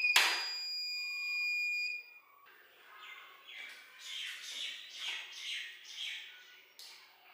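Treadmill console gives one long electronic beep of about two seconds, starting with a click as the magnetic safety key is put in place. Then soft footfalls on the treadmill deck, about two a second.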